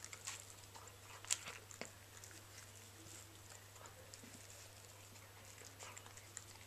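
Old English Sheepdog puppy eating moist food nuggets from a stainless steel bowl: faint chewing and mouth noises with scattered small clicks of teeth and food against the metal, and one sharper clink about a second and a half in.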